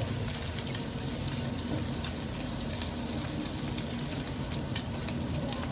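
Kitchen tap running water into a sink: a steady hiss with a few small clicks.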